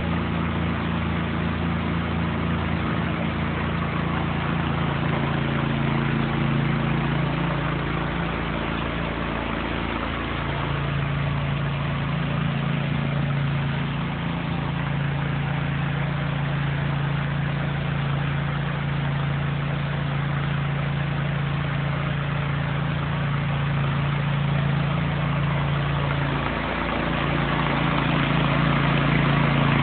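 Engine-driven pressure washer running steadily while its hose sprays water onto concrete, with a constant spray hiss over the engine hum. The engine note rises about ten seconds in and dips briefly near the end.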